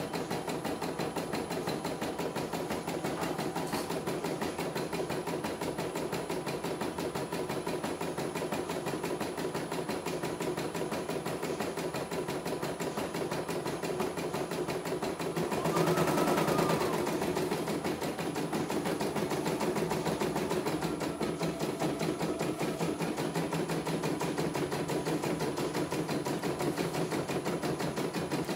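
CNY E900 computerised embroidery machine stitching a design, its needle bar running in a fast, steady rapid-fire rhythm. A brief louder sound rises over it about halfway through.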